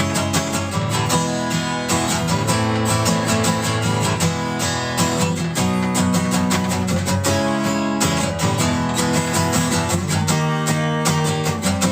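Acoustic guitar strummed in a steady rhythm with no voice: an instrumental interlude between sung verses.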